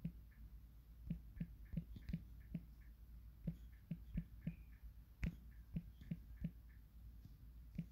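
Typing on a smartphone's on-screen keyboard: about fifteen soft taps in short runs of two or three a second, with brief pauses between words.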